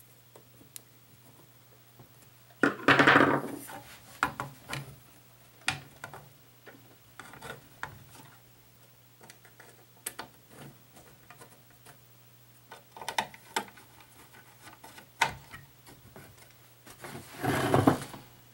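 Hands working on a vacuum-tube tuner's sheet-metal chassis on a wooden workbench: scattered clicks, knocks and rubbing, with two louder scraping bursts about three seconds in and near the end. A faint steady low hum lies underneath.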